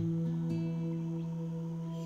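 Ambient film score: a held, low, sustained chord that comes in suddenly at the start and rings on steadily.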